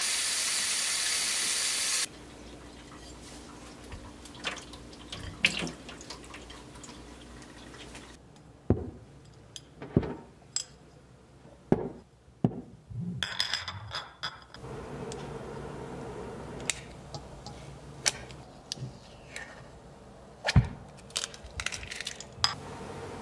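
Tap water pours into a glass bowl of lemons in a steel sink for about two seconds, then cuts off. Glass storage jars with metal screw lids are then handled and set down on a table, giving scattered clinks and knocks.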